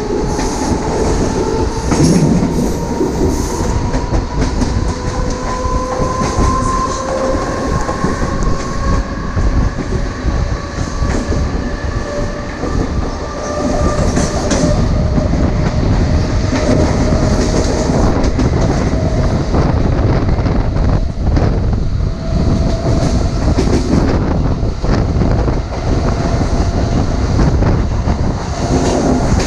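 Mumbai suburban electric local train accelerating, heard from an open doorway: its traction motors whine, the pitch rising steadily over the first dozen seconds and again through the second half, over a loud rumble of wheels on rail with the clack of rail joints.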